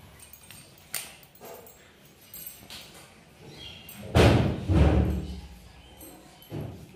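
Handling noise from a hand-held phone: a sharp click about a second in, then a loud, deep thudding rumble about four seconds in lasting about a second.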